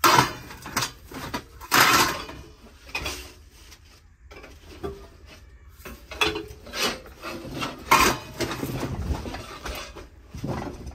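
Metal platters and other old items being handled and shifted on a shelf: a run of knocks, clanks and scrapes, with the loudest clatters at the start, about two seconds in and about eight seconds in.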